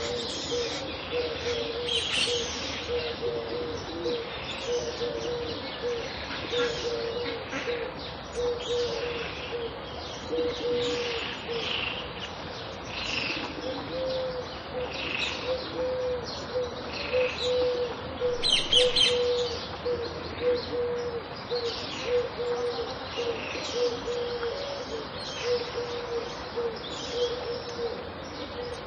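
Pond ambience with several birds: scattered high chirps and calls over a low call that repeats in short, regular notes throughout, with a louder burst of chirping about two-thirds of the way in.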